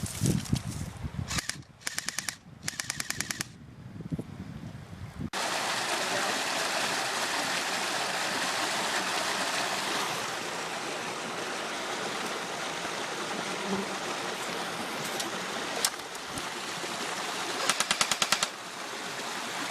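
Airsoft gun firing on full auto in several short bursts of rapid clicks in the first few seconds, with one more burst near the end. From about five seconds in, a steady rushing hiss runs under it.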